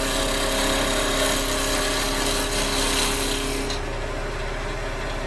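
A gouge cutting a spinning wood blank on a lathe: a steady rushing shear of the cut over the hum of the lathe motor. A little over three and a half seconds in, the tool comes off the wood and only the motor's hum goes on.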